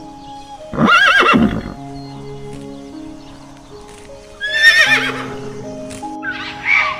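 A horse whinnying: a loud, wavering call about a second in and another a little past the middle, with a shorter call near the end, over background music.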